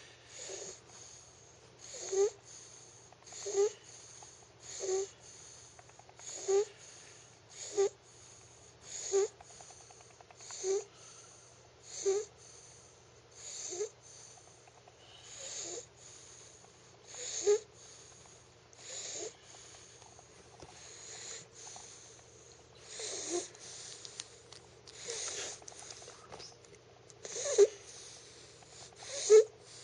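A young child snoring in sleep, with a short raspy snore about every second and a half. The snores are softer around the middle and loudest near the end.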